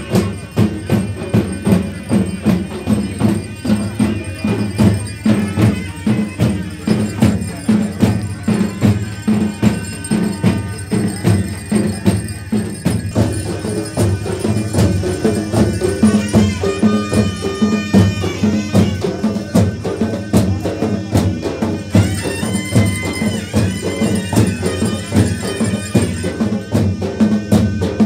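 Traditional folk music played on drums and jingling tambourine-like percussion, a steady beat of about two strong strokes a second, with a higher held melody line coming in at times.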